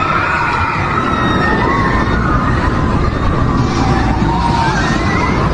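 Steady outdoor rumble and hiss, like wind and traffic on the microphone, with a few faint rising and falling high-pitched tones.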